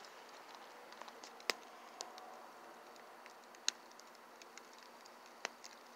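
Fire in a fire pit, burning logs and a cardboard carton, crackling faintly with scattered sharp pops, the strongest about a second and a half in, near the middle and shortly before the end.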